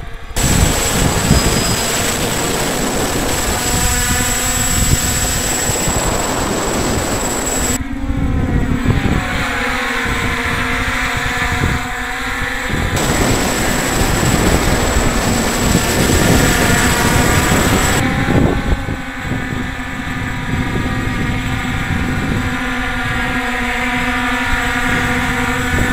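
Six-rotor hexacopter propellers and motors buzzing in a steady hum while the craft hover, their pitch wavering now and then as they correct position. Wind rumbles on the microphone underneath.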